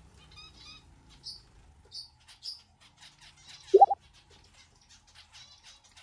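Small pet finch giving three short, high chirps about a second apart, with faint rapid high ticking around them. About four seconds in comes a loud, brief tone that slides up in pitch.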